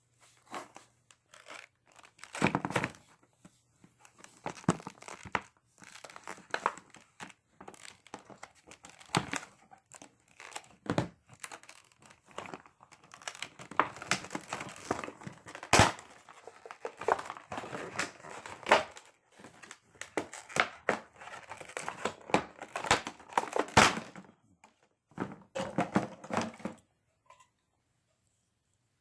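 Packaging being handled and opened: irregular crinkling and tearing with sharp clicks and knocks, stopping a little before the end.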